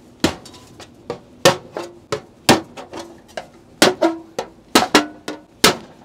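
A Kampo 6x9 bayonet knife stabbed again and again into a galvanized steel watering can. About a dozen sharp metallic clanks, the loudest roughly once a second, each followed by a short ring from the can's sheet metal as the blade punches into it.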